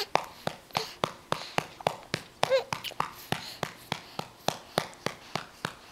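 A hand patting a baby's back to bring up a burp, at a steady pace of about three pats a second. About two and a half seconds in, the baby lets out a short vocal sound.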